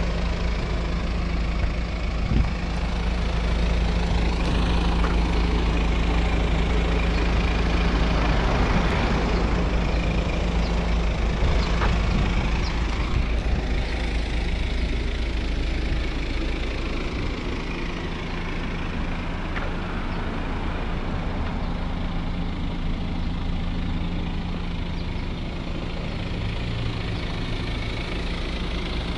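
BMW X4 engine idling, a steady low hum; the deepest part of the rumble eases about two-thirds of the way through.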